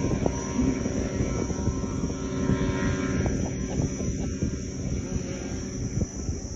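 Schempp-Hirth Arcus M self-launching glider's two-stroke propeller engine running on the takeoff roll, a steady drone that fades slightly near the end as the glider moves away.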